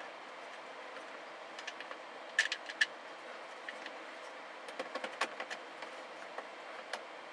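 Small clicks and taps of hands fitting a speaker and its screw into the plastic roof lining of a loader cab. They come in a quick cluster about two and a half seconds in, the loudest, and another around five seconds, over a steady background hiss.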